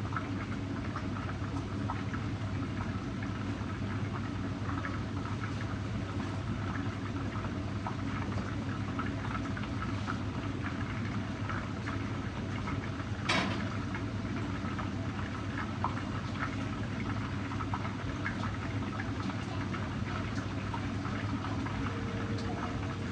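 Fish pan-frying in hot oil: a steady sizzle with small pops and crackles throughout, and one louder click about thirteen seconds in.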